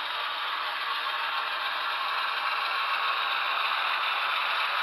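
HO-scale Athearn Genesis ES44AC model locomotive running toward the microphone, its Soundtraxx Tsunami DCC sound decoder playing a GE diesel engine sound through a small onboard speaker, mixed with a steady mechanical rattle.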